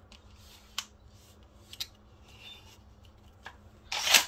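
Handling noises from a polymer bullpup pump shotgun and its hard case: three sharp clicks about a second apart, then a short, louder scrape near the end.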